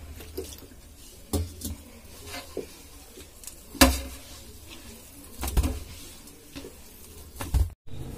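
Flour and water being mixed and kneaded by hand into dough in a steel plate: soft rubbing with scattered clinks and knocks of metal on steel, the loudest about four seconds in. The sound cuts out for a moment near the end.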